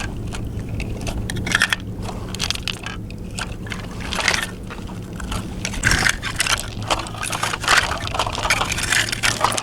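Beach stones clacking and crunching in an irregular run of short knocks and scrapes as rocks are handled and walked over, over a steady low hum.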